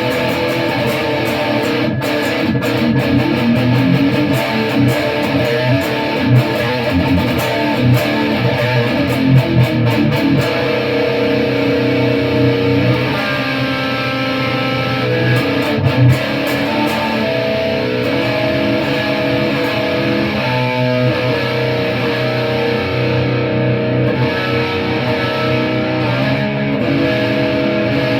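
Electric guitar played through an EVH 5150III 15-watt LBX amp head into a Mesa Boogie 1x12 Mini Rectifier cabinet with a Celestion Vintage 30 speaker. Busy picked riffing in the first half gives way to longer held chords.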